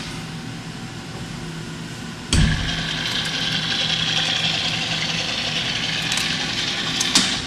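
Eurotech 730-SLY CNC turning center running with a steady machine hum. About two seconds in there is a sudden thump, after which a steady hiss joins the hum; a sharp click comes near the end.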